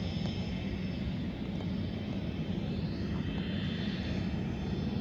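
Piper Cherokee's single piston engine running steadily at low power, heard as an even, unchanging drone.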